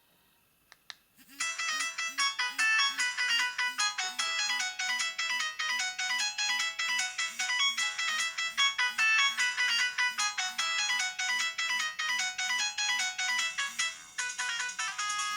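Maxcom MM462BB mobile phone playing a polyphonic ringtone through its loudspeaker: a fast, bright electronic melody with a steady pulsing beat. It starts about a second and a half in, after two faint clicks. Near the end it breaks briefly and changes to a different tune.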